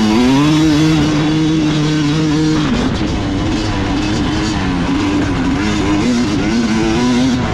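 Yamaha YZ250 two-stroke dirt bike engine under throttle. The revs climb and hold high, drop about two and a half seconds in, then rise and fall as the throttle is worked, picking up again near the end.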